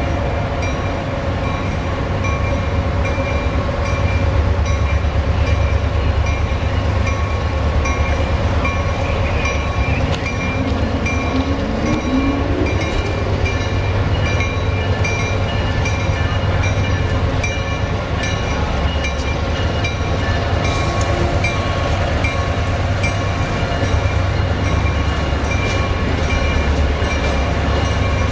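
Amtrak Siemens ACS-64 electric locomotive moving slowly through the station switches: a steady low rumble with a steady hum over it and scattered clicks from the wheels over the switch work. A short rising whine sounds about ten seconds in.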